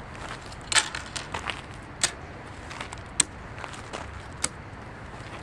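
A series of short, sharp clicks, about one every second and a quarter, over a faint steady outdoor background.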